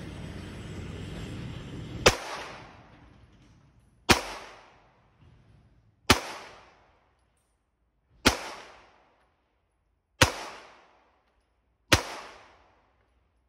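Six single shots from a Glock 19 9mm pistol, fired slowly about two seconds apart, each followed by a short echo that dies away.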